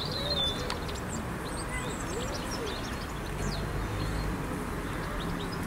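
Open-air park ambience: small birds chirping now and then over a steady outdoor rush and a low background hum.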